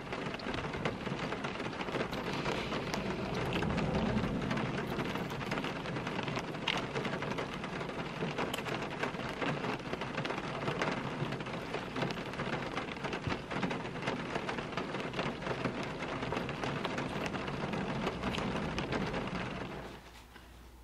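Rain falling on a car's roof and windows, heard from inside the car: a dense, steady patter of many small drops. It cuts off suddenly near the end.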